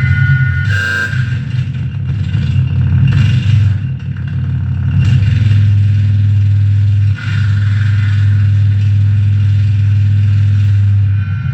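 Noise music from a mixer feedback rig with reel-to-reel tape, reverb and bass: a loud, dense low drone under steady feedback tones. A high feedback whistle cuts out about a second in, and hissy swells of noise break in every couple of seconds before the drone settles into a steady hold.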